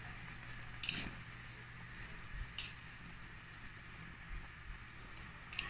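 Pot of chicken pieces boiling in water on a stove: a steady low hum with a faint bubbling hiss. Three sharp clicks come about a second in, about two and a half seconds in, and near the end.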